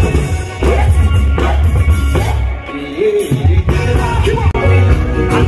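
Live Afrobeats music: a male lead vocal sung over a heavy, pulsing bass line and drums.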